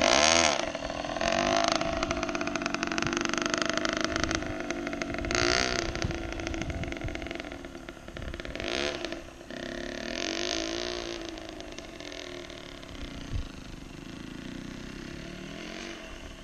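Two-stroke dirt bike engine being ridden in second gear, revving up and dropping back several times, growing fainter toward the end as the bike moves off.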